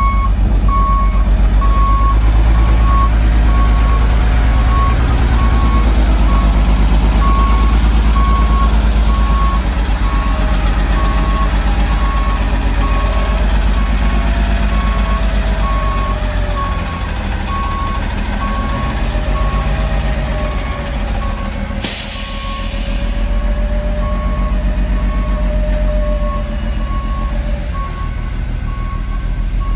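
Peterbilt front-loader garbage truck with a Maxon body running on its natural-gas engine, its backup alarm beeping steadily over the low engine rumble. About two-thirds of the way through there is a sharp hiss of air, about a second long, from the air brakes.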